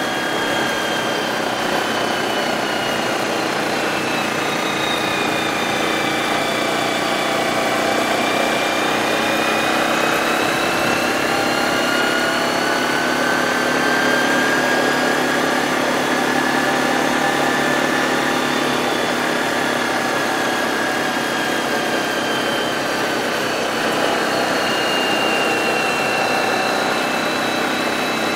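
ATV engine running steadily while riding along a gravel road, its pitch sinking and rising slowly as the speed changes.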